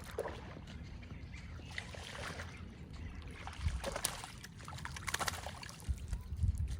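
Water splashing and sloshing in irregular bursts as a hooked bass is pulled in and landed, with sharp clicks and rustles of handling over a steady low rumble.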